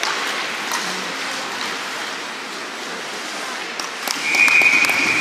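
Steady crowd and rink noise in an ice hockey arena, with a few sharp clacks, then a referee's whistle blown once for about a second near the end.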